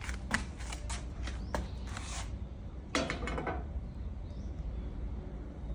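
A cat eating crisp fried fish heads and rice from a plastic bowl: a run of short clicks and crunches of chewing, then a short scraping rustle about three seconds in.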